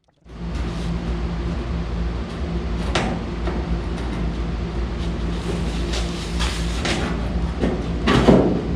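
Power cutting tool slicing through the sheet steel of a 1955 Ford F100 cab along a marked line to remove rusted metal. It starts abruptly and runs steadily as a motor hum with a hissing cutting noise, with several brief louder scrapes, the loudest near the end.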